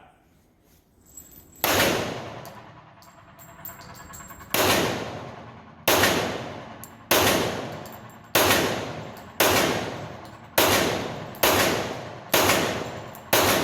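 Ten pistol shots from a 2011-pattern handgun, fired one at a time. After a gap of about three seconds following the first shot, the rest come at roughly one a second, each cracking sharply and dying away over the next second.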